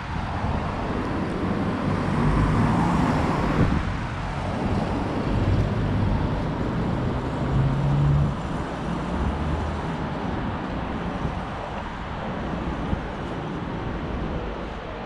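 Light road traffic on a city street: car engines and tyres going past, with a louder pass about two to four seconds in.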